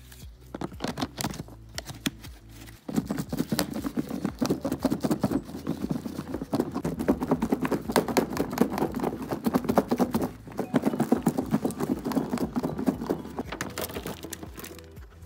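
Rapid, irregular knocking and clatter of hand work with bread for croutons. It starts light, grows busier about three seconds in, and eases off near the end.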